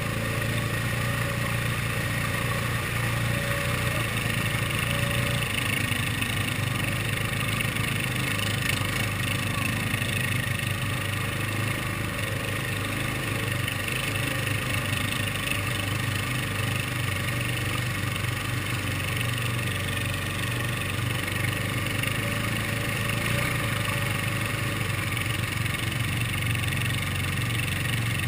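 ATV engine running steadily at low speed while crawling through deep mud, heard close up from the rider's helmet.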